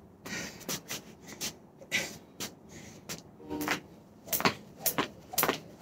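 Jump rope slapping the porch deck on each turn as the jumper's feet land, a steady rhythm of about two sharp strikes a second that grows louder in the second half.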